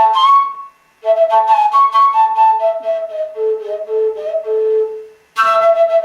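A ceramic wind instrument, a clay flute, played as a tune: a run of held, flute-like notes in short phrases, broken by brief pauses about a second in and near the end.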